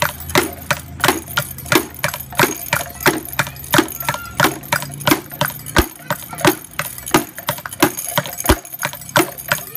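Hard objects knocked together in a steady rhythm, about three sharp strikes a second.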